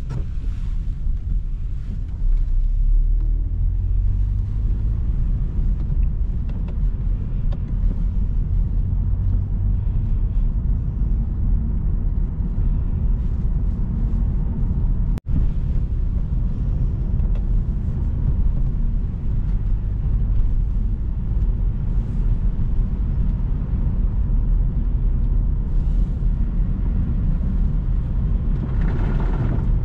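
A car being driven, with a steady low engine and road rumble.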